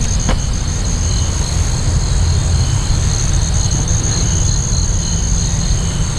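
Insects chirring in a steady high-pitched drone, with a second, pulsing call beneath it, over a loud steady low rumble.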